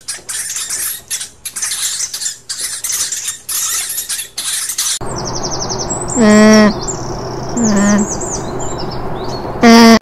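Dwarf hamsters squeaking in a quick string of short, harsh chirps. About five seconds in this gives way to an alpaca giving three loud, wavering calls a second or two apart, the last the loudest, over small birds chirping.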